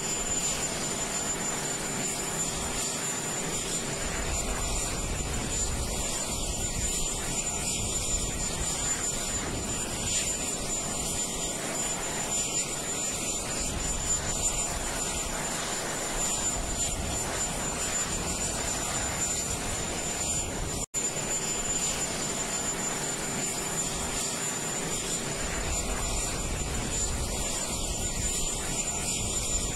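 Jet aircraft noise: a steady roar with a thin, high, constant whine above it. It drops out for an instant about two-thirds of the way through.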